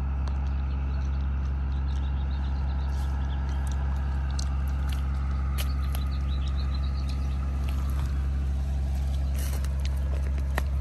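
Steady low machine hum, like a motor running without change, with scattered light clicks and rustles over it.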